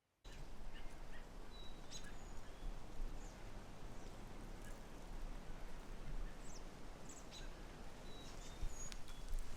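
Outdoor ambience: a steady background hiss with scattered short, high bird chirps.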